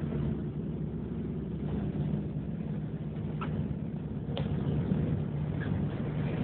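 City bus engine running, a steady low rumble heard from inside the passenger cabin, with two faint clicks about halfway through.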